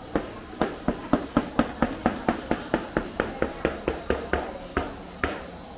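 A quick, steady run of about twenty sharp knocks, roughly four a second, spacing out and stopping near the end.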